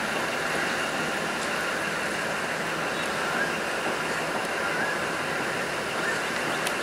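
Sri Lanka Railways Class S11 diesel multiple unit running along the track: the steady noise of its diesel power car and wheels on the rails, with a few short, faint squeaks.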